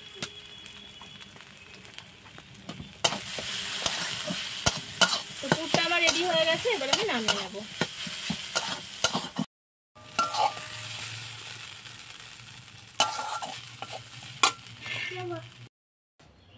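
A flat spatula stirring and scraping a dry chicken-and-potato filling in an aluminium kadai, with the hiss of frying and many sharp clicks of the spatula against the pan. It grows louder about three seconds in, and the sound breaks off twice briefly at edits.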